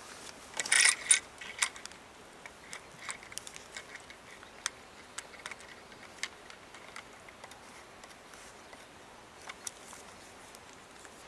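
Clicks, taps and light clatter of a camcorder being handled and fitted onto a handheld camera grip's mounting plate. The loudest cluster of clatter comes about a second in, followed by scattered small clicks.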